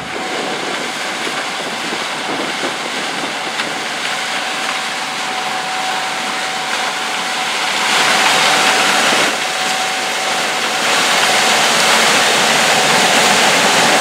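Gleaner S68 combine running as it harvests standing corn with its 8-row corn head: a dense, steady rushing noise with a steady whine, getting louder about eight seconds in and again near the end as the machine comes closer.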